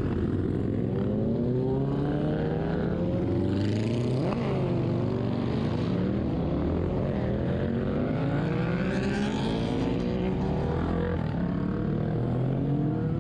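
Several motorcycle engines running as a group rides off together, their pitch repeatedly climbing and dropping as they accelerate and shift up through the gears. A sharp, brief rev stands out about four seconds in.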